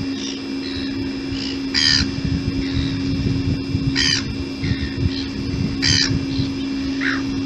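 Seagulls calling: three loud, harsh calls about two seconds apart, with fainter calls from other gulls in between. A steady low hum runs beneath.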